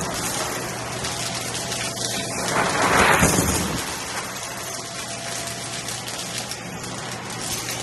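Shark vacuum running on carpet with a steady motor hum, crackling as it sucks up crunchy Dippin' Dots beads; the crunching swells louder about three seconds in.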